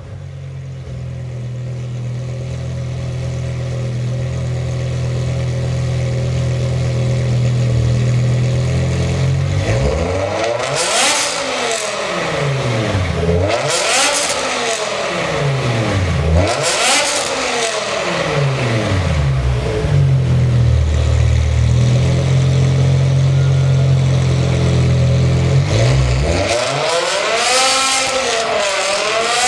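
A performance car's engine idling steadily, then revved three times in a row, each rev climbing and falling back to idle. After another stretch of idle, it is revved again twice near the end.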